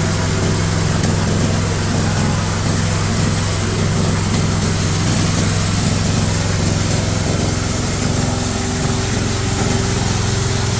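Engine-driven G-30 chopper/shredder machine running, a steady mechanical drone with a slight change in its engine note about nine seconds in.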